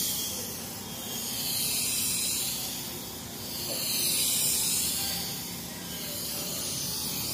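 Compressed-air paint spray gun hissing as it sprays paint onto a car body. The hiss swells and fades every couple of seconds with each pass of the gun.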